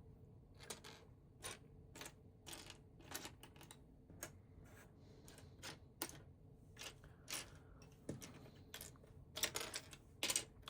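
Loose LEGO plastic pieces clicking and clattering irregularly as they are sifted by hand in search of a part, with a denser run of clicks near the end.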